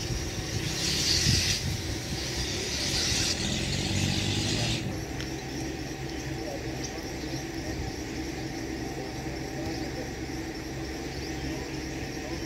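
Water buffalo pawing and scraping at loose sandy soil with its hooves: a few rough scraping rushes in the first five seconds, then a steady low hum.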